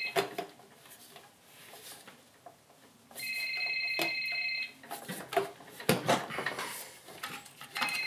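An electronic ringing tone, a fast trill about a second and a half long, repeating about every four and a half seconds, with a few knocks and rubbing sounds from hands fitting a rubber air-intake hose onto a golf cart's carburetor.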